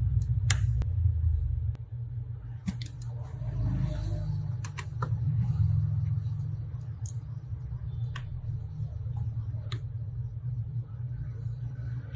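Scattered small sharp clicks and taps, a dozen or so at uneven intervals, over a steady low hum.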